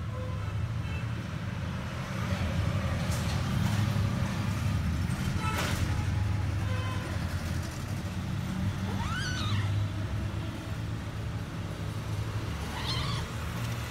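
Kitten meowing twice, about nine seconds in and again near the end, each a short call that rises and falls, over a steady low rumble. A couple of sharp taps come earlier.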